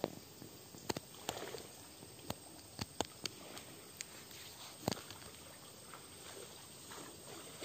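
Dry leaves and twigs crackling and snapping close to the microphone, irregular sharp snaps roughly once a second, over a faint steady outdoor hush.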